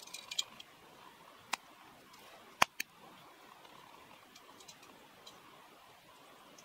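A few sharp clicks and ticks over a faint steady background. The loudest comes about two and a half seconds in, with a second one just after it.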